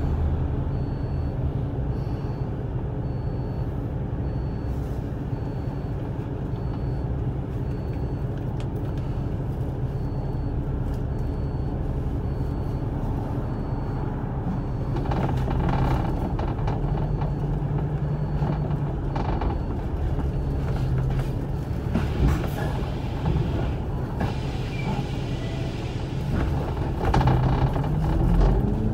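Inside a moving bus: the diesel engine drones steadily as the bus cruises, with clattering rattles from the body for several seconds past the middle. Near the end the engine note rises as the bus picks up speed.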